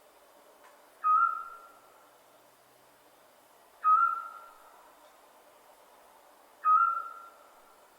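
Scops owl calling: three short, level whistled notes, evenly spaced about three seconds apart, each trailing off in a brief echo.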